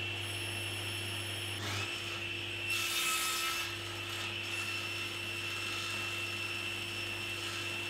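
A 1¾ horsepower table saw runs steadily with a constant whine while a crosscut sled carries a wooden board through the spinning blade. The cut goes through between about two and four seconds in, adding a rougher cutting noise, and the saw keeps running after the sled is drawn back.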